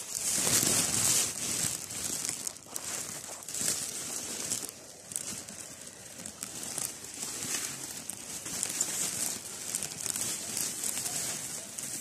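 Plastic bag crinkling and leaves and stems brushing as someone moves and picks among plants, in uneven bursts of rustling.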